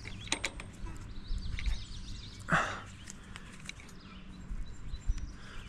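Small metal clicks and clinks of carabiner and pulley hardware being handled on a steel tower mast, with one louder short scrape about two and a half seconds in. Underneath is a low, uneven rumble of breeze on the microphone.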